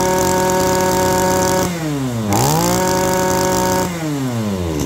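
Robin (Rabbit) 23cc brush cutter engine revving at full throttle. Its pitch drops sharply toward idle about two seconds in, climbs back to full revs and holds, then falls off again near the end as the throttle is released.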